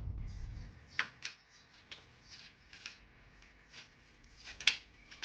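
Faint, scattered light clicks and rubbing sounds of something being handled, about six short strokes, the sharpest near the end.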